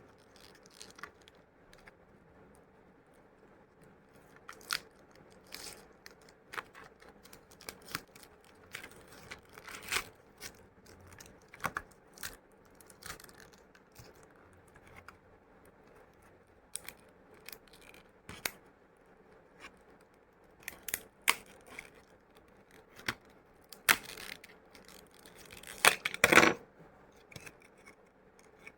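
Plastic retail packaging of a laptop RAM stick being opened by hand: irregular clicks, snaps and crackles of the plastic, coming thicker and louder near the end.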